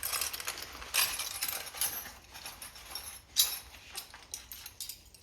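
Small metal hand tools (the e-bike's included wrenches and Allen keys) clinking and jangling against each other as they are handled, with several sharp clinks.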